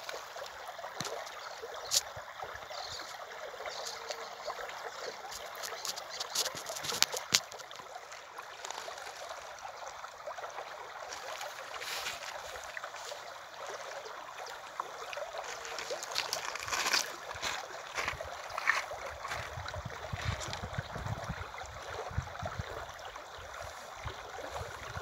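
River water running, a steady sound of flowing water, with a few sharp clicks or knocks scattered through it, the loudest about two and seven seconds in.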